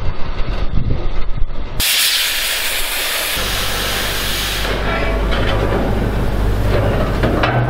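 Hypertherm plasma cutter cutting a round hole through steel deck plate. Its loud, steady hiss starts suddenly about two seconds in, after some clattering, then eases to a softer hiss over a steady low hum.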